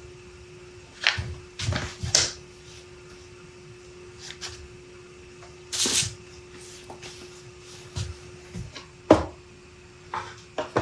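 Handling noises on a wooden workbench: scattered knocks, taps and paper rustles as sketch paper, a pencil and thin plywood panels are moved and picked up, the sharpest knock a little after the middle. A steady hum runs underneath.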